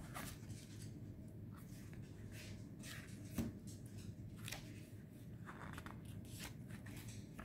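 Pages of a slick-paged paperback book being flipped and handled: short, irregular soft paper rustles and brushes, with one sharper tap about three and a half seconds in.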